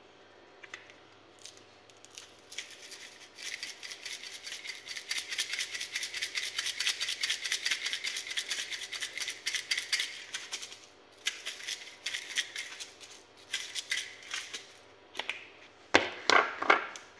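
A spice shaker bottle of ground chicken seasoning being shaken fast over a pan, the powder rattling inside in a long run of quick shakes and then a few shorter bursts. A few sharper knocks come near the end.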